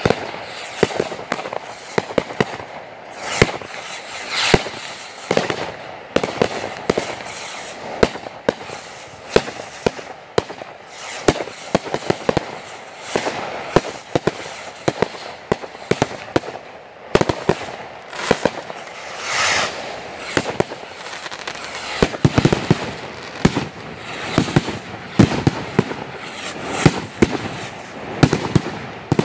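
Fireworks finale: a dense, unbroken barrage of aerial fireworks launching and bursting, with bangs and crackles coming several a second. A few hissing swells rise among the bangs.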